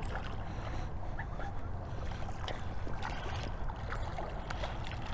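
Steady low rush of moving river water, with scattered small clicks and ticks.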